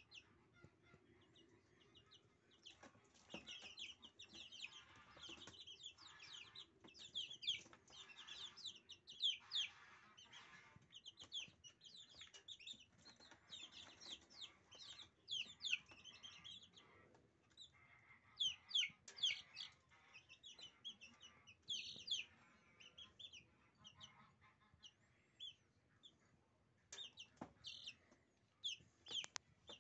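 A brood of 20-day-old Silkie chicks peeping: many short, high-pitched calls falling in pitch, coming thick and fast for most of the time and thinning out near the end.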